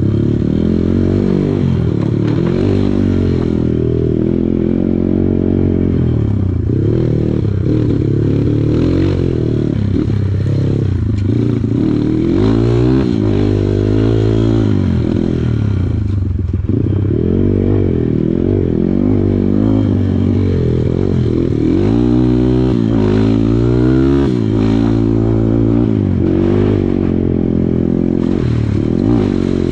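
Kawasaki KLX140 dirt bike's single-cylinder four-stroke engine running hard, its revs rising and falling again and again as the throttle is worked, with some clatter from the bike over rough ground.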